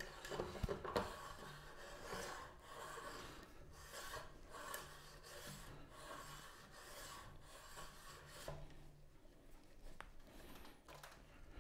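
Metal threads of a telescope focuser being screwed by hand into the telescope tube: faint, irregular rubbing and scraping strokes as the hands turn it.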